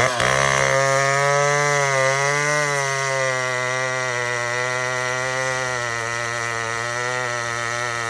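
Big chainsaw with a 36-inch bar at full throttle, cutting through a large round of hardwood. The engine pitch sags briefly about two seconds in as the chain bites, then holds steady under load.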